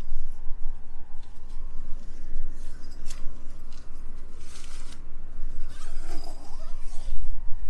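The nylon and polyester mesh door of a tent rustles in a few short swishes as a hand pulls at it, over a steady low rumble of wind on the microphone.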